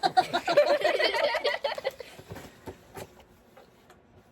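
A person laughing in quick bursts for about two seconds, then quieter, with a few soft clicks.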